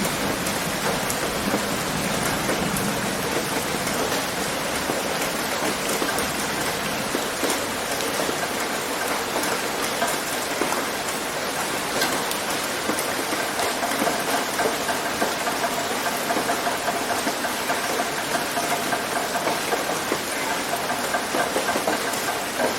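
Steady rain pattering on a tin roof, with individual drops striking sharply here and there.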